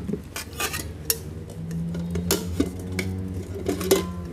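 Aluminium camping cook-set pots and lids knocking and clinking against each other as the nested pieces are lifted out and set down: several irregular knocks and clinks.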